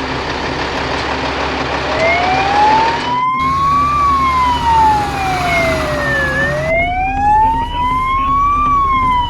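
Fire engine siren wailing, its pitch rising and falling slowly twice, over a steady vehicle noise. The siren comes in about two seconds in.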